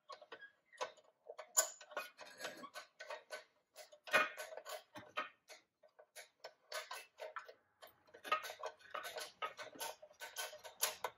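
Tonka toy crane's hand-cranked cable winch clicking as it is turned, in quick, uneven runs of ticks with a short pause a little past halfway.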